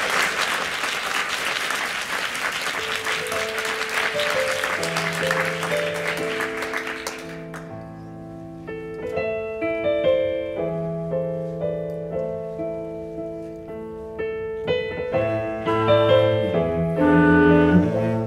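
Audience applause dying away over the first seven seconds as a small chamber ensemble of piano, clarinet and cello begins a slow piece with long held notes. The music continues alone after the applause stops.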